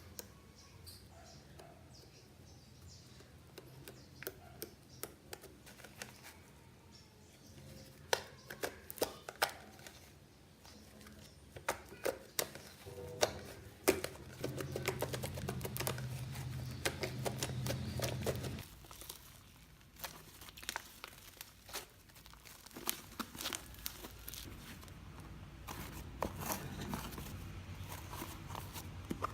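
Crunchy bubbly slime being squeezed and stretched by hand, giving irregular crackling clicks and pops. A low rumble sits under it for a few seconds around the middle.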